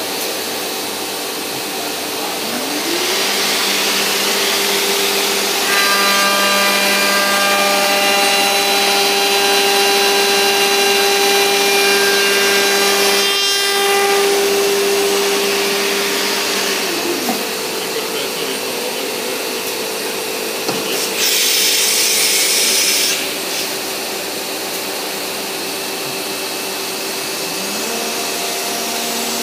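Woodworking CNC router spindle: its whine rises about three seconds in, runs while the cutter mills the wooden workpiece with a rushing cutting noise, and winds down around seventeen seconds in. A loud two-second hiss follows a few seconds later, and the spindle spins up again near the end.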